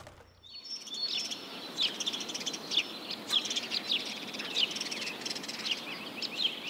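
Birds chirping: many short, quick calls repeating irregularly over a faint steady hiss, like a meadow birdsong ambience. It fades in about half a second in.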